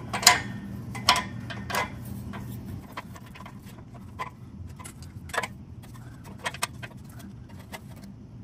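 Irregular metallic clicks and taps of a hand ratchet and socket being fitted onto an O2 sensor and turned to tighten it into the exhaust pipe. The sharpest clicks come in the first two seconds, with smaller bunches of clicks later.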